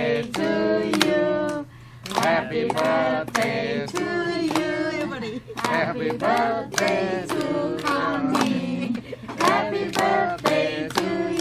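Voices singing with hands clapping in time, about two claps a second, with short pauses between sung phrases.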